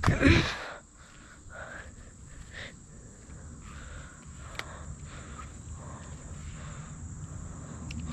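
Crickets or similar insects chirring in a steady high drone. A brief loud noise in the first second stands out above it.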